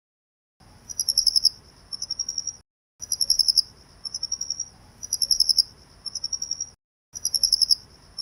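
Cricket chirping: rapid pulsed trills, a louder trill followed by a softer one, repeating about every two seconds. The chirping stops dead three times for short silent gaps.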